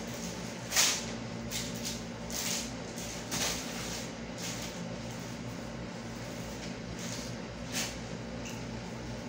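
A steady low hum with a few brief rustles and knocks from items being handled, the loudest about a second in.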